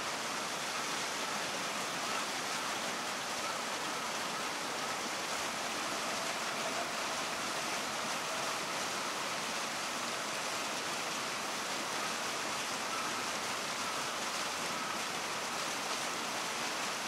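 Steady hiss of an Iwatani-Primus P-153 gas canister stove burning under a pot of water that is heating but not yet boiling.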